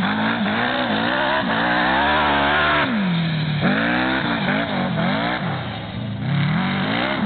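Racing single-axle tractor's engine revving up and down as it is driven hard round a dirt track, the revs rising and falling with each bend. It holds high for a stretch in the middle, then drops sharply before climbing again.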